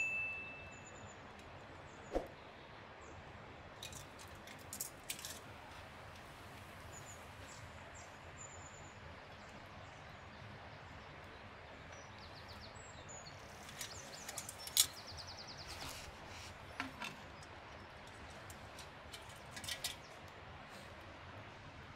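Quiet forest ambience: a steady hiss with a few short, high bird chirps, and scattered small clicks and metallic clinks from a metal jug with a chain being handled, the sharpest click about fifteen seconds in.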